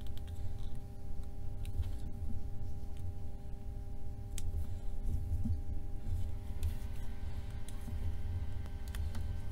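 A few light clicks of a metal spudger against a smartphone's display frame, amid handling noise and a steady hum.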